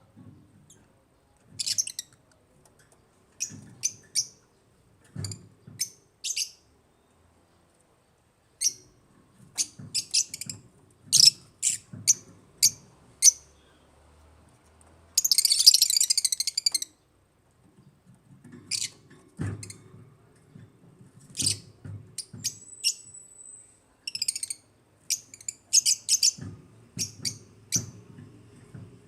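African lovebirds chirping: short, sharp, high-pitched calls in irregular clusters, with a burst of rapid chatter about halfway through and a brief steady whistle a little later.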